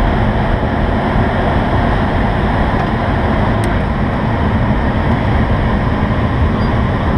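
Steady rush of air streaming over the canopy of an IS-28B2 glider in flight, heard inside the cockpit as an even, unbroken noise.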